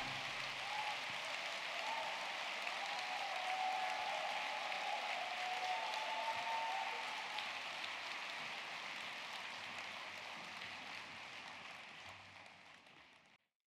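Large theatre audience applauding, a dense even clatter of many hands that slowly dies away and cuts off near the end.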